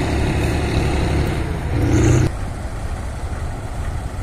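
Kirovets K-701 tractor's heavy diesel engine running steadily with a deep, even hum. About two seconds in it cuts off suddenly, and a quieter, rougher low engine rumble follows.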